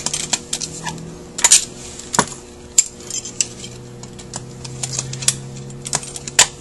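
Irregular sharp metal clicks and clinks as a screwdriver works the long top screws out of a Rochester Quadrajet four-barrel carburetor, over a faint steady hum.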